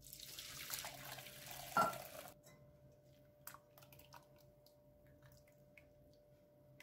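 Purple basil sherbet poured from a stainless steel pot through a mesh strainer. It splashes for about two seconds, with one knock near the end of the pour, then gives way to faint drips and light clicks from the strainer.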